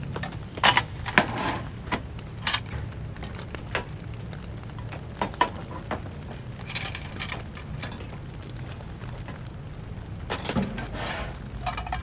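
Irregular clicks, knocks and short clattering of small objects being handled, over a steady low background rumble.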